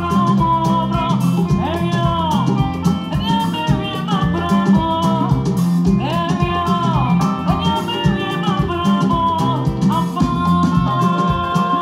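Live band music through a PA: sung vocals with gliding, held notes over a drum kit and keyboard, with a steady beat.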